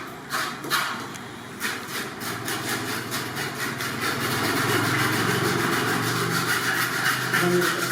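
Pork being chopped with a few sharp cleaver strikes. From about two seconds in, a steady rasping noise with a low hum takes over.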